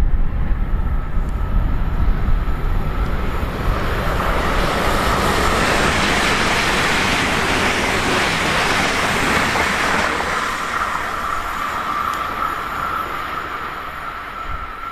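DB Class 412 ICE 4 high-speed electric train passing at speed. The rushing of wheels on rail and air builds up, peaks as the train goes by, then fades away. A steady high whine runs underneath.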